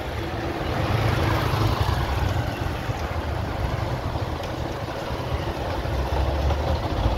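Motorcycle engine running at low speed with a steady low rumble, under wind noise on the microphone from riding.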